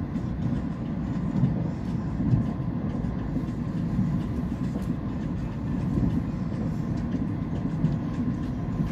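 Passenger train in motion heard from inside the carriage: a steady low rumble with faint scattered ticks.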